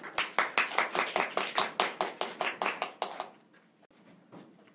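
A short round of applause from a small group, the separate hand claps coming quickly and then dying away about three and a half seconds in.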